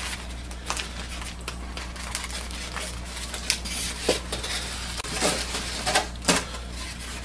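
Styrofoam and cardboard packing being handled: scattered rustles, taps and light knocks, with a few sharper knocks in the second half.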